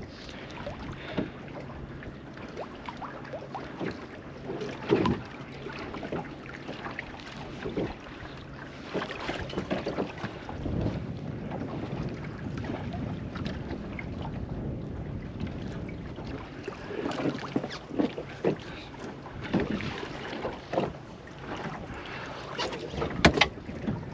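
Water lapping against the hull of a small fishing boat, with wind on the microphone and scattered knocks, more of them in the second half.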